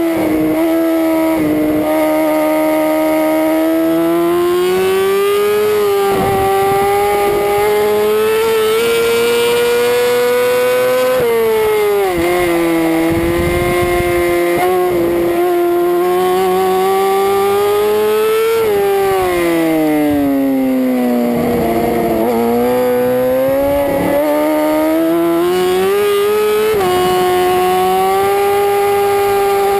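Racing superbike engine heard from an onboard camera, run hard on track. Its pitch climbs steadily under throttle, drops sharply once about eleven seconds in, sinks for a couple of seconds around the twenty-second mark as the rider comes off the throttle, then climbs again with a sudden jump up near the end.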